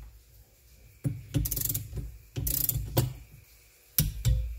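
Ratcheting torque wrench tightening a bolt into an aluminium engine case, in about four short strokes of rapid pawl clicks with pauses between them.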